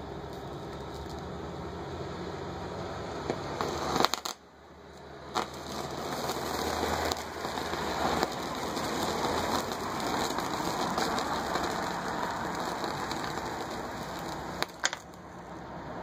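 Electric arc from a homemade microwave-oven-transformer metal melter, burning through a piece of metal: a continuous crackling hiss with sharp pops about four seconds in, again a second later, and near the end.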